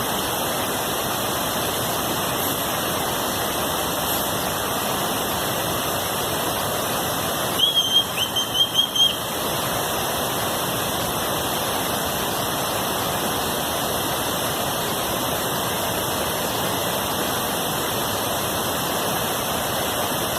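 Waterfall rushing steadily. About eight seconds in, a brief high-pitched call comes in about half a dozen quick pulses over the top of it.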